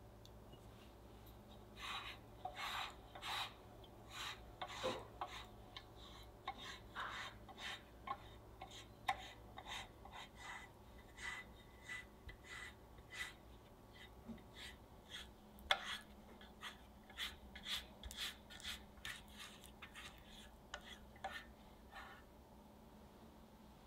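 Pastry brush stroking butter onto the inside of a metal loaf pan: a long run of short, soft rubbing strokes, with one sharper tap about two-thirds of the way through.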